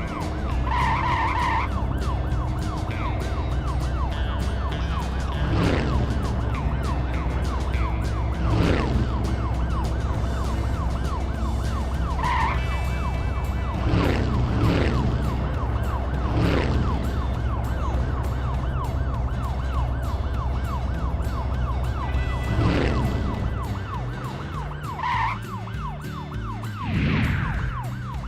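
Cartoon vehicle sound effects: a steady low engine rumble under a fast, warbling siren-like tone, broken by about eight long falling whooshes and three short beeps near the start, about twelve seconds in and near the end.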